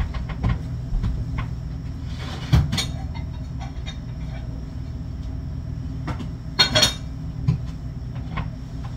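Kitchen things being handled out of view: a few scattered knocks and clatters, the loudest about two and a half seconds in and again near seven seconds, over a steady low hum.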